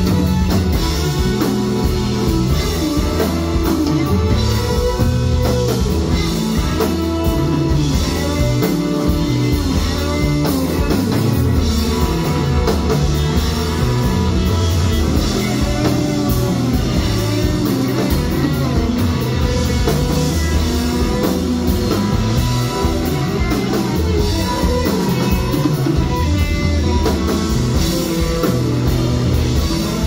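Live rock band playing a song: electric guitar, keyboards and drum kit, loud and steady throughout.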